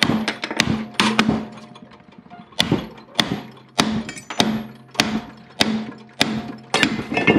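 Repeated hammer blows on the case of a seized car alternator, about two a second with a short break around two seconds in. Each blow is a sharp knock with a brief metallic ring. The case halves are still locked together by the seized unit.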